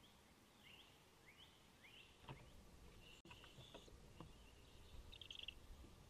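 Faint high chirps from barred owlets in a nest box, a few short rising peeps, then some knocks and rustling and a brief raspy burst near the end.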